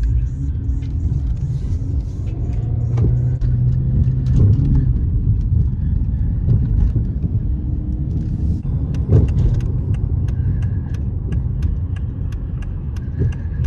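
A car being driven, heard from inside the cabin: a loud, steady low rumble of engine and road noise, swelling a little twice. In the second half comes a run of quick, light clicks, several a second.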